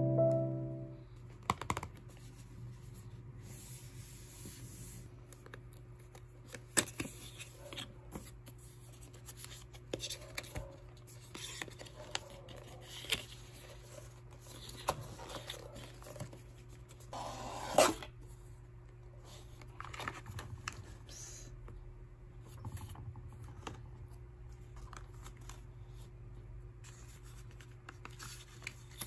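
Hands handling and opening a cardboard phone box and sliding out its paper and card inserts: scattered soft taps, scrapes and rustles. The loudest rustle comes about eighteen seconds in.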